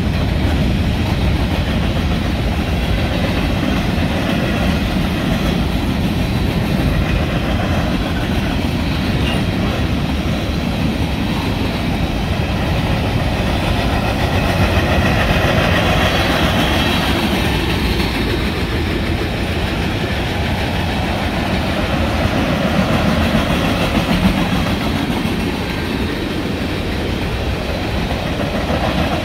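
Freight train cars, covered hoppers then tank cars, rolling steadily past, their steel wheels running on the rails with a continuous loud rumble.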